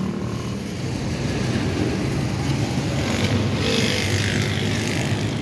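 Bull Power tractor's diesel engine running steadily, a constant low drone heard close to the engine bay, with a hiss swelling briefly about three seconds in.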